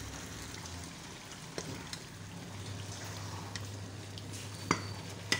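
Pot of egusi soup simmering on the stove with water leaf on top: a faint steady sizzling hiss, with a couple of sharp clicks near the end.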